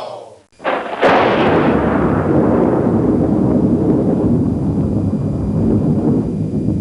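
A sound-effect boom: a sharp crack about half a second in, then a long low rumble that slowly dies away.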